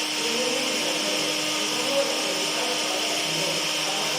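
Electric kitchen blender running steadily, its motor giving a constant whirring hiss over a steady hum, with one small brief knock about two seconds in.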